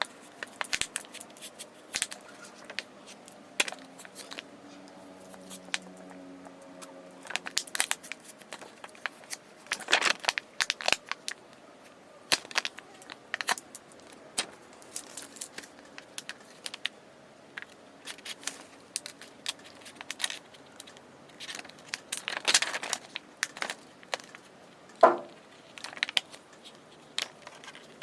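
Battery adhesive crackling and tearing as a card is forced under the glued-in battery of a Samsung A03 phone to pry it loose, with scattered clicks and scrapes.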